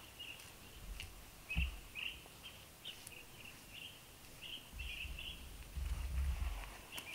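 Hands patting and smoothing wet mud onto a clay oven: dull low thumps about a second and a half in and a longer run of them near the end. A small bird chirps repeatedly throughout, short high calls about twice a second.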